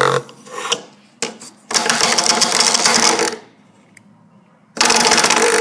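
Sonic Bomb alarm clock's bed-shaker vibrating in pulses: a rattling buzz that comes on for about one and a half seconds at a time. Bursts stop just after the start, run again from about two seconds in to past three, and start again near the end.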